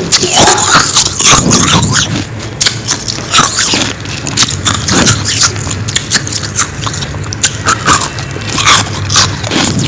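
Frost being bitten and chewed close up: dense, irregular crunching and crackling, a little quieter in the middle.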